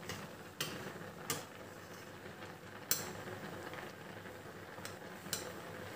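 A steel slotted spoon clinking against a steel pot about four times as it stirs and scoops up boiling macaroni to check whether it is cooked, over the faint steady hiss and bubbling of the boiling water.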